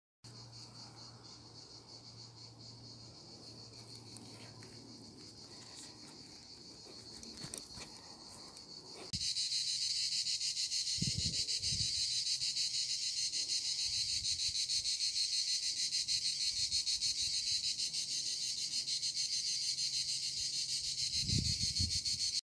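Chorus of cicadas, a steady high-pitched buzz: faint at first, then much louder from about nine seconds in. A few soft low thumps come through it.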